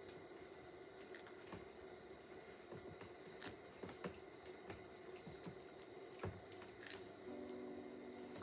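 Indian star tortoise biting and tearing at a leafy green stalk: faint, irregular crisp snaps and crunches of the leaf, a few to a second at most. Soft music comes in near the end.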